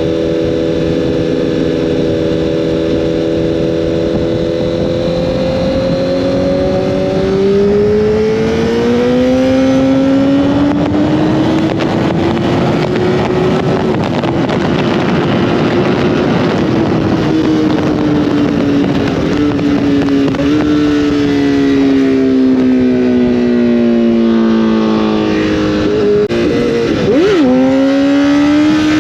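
Honda CBR1000RR inline-four engine under way. It pulls with its pitch climbing after a gear change about a quarter of the way in, holds, then falls slowly as it eases off. A quick jump in engine pitch near the end is followed by climbing again, all over a steady rush of wind.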